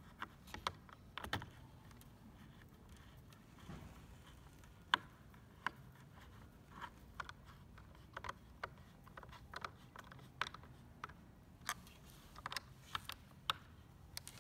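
Scattered small clicks and taps of a hand-held Phillips screwdriver driving screws into the plastic bracket of a battery box, along with the parts being handled.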